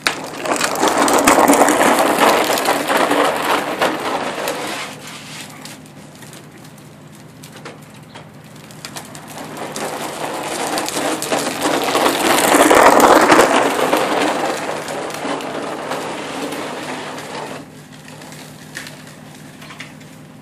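Toy car driving nearby, a gritty rolling, crunching noise of its wheels on the ground. It swells and fades twice, loudest during the first few seconds and again around twelve to fourteen seconds in.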